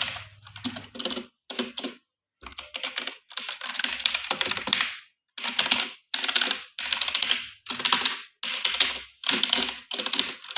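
Redgear Shadow Blade MK853 mechanical keyboard with clicky blue switches being typed on fast, in bursts of rapid clicking keystrokes with short pauses between them.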